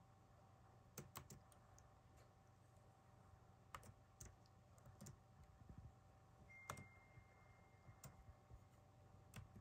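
Faint laptop keyboard keys tapped one at a time: a handful of separate, irregularly spaced clicks over a low steady room hum.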